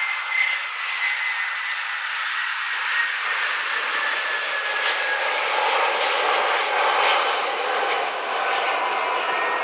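Airbus A320 jet on final approach to land, its engines making a steady jet noise with a high whine that slowly falls in pitch as it passes.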